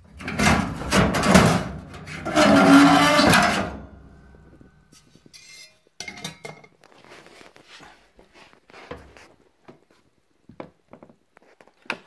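Sheet-metal heating element housing of a Samsung electric dryer scraping and rattling against the cabinet as it is worked loose, with a short groaning screech of metal about two and a half seconds in. After about four seconds it gives way to faint scattered clicks and knocks of handling.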